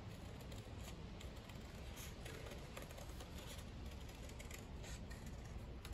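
Scissors snipping through a folded sheet of paper: faint, irregular snips and paper rustle.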